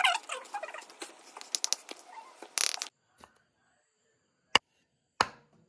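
Kitchen knife chopping coriander and spring onion on a wooden chopping board, a quick run of sharp chops that stops abruptly about three seconds in. Then two single knocks of the blade on the board as a lime is cut in half.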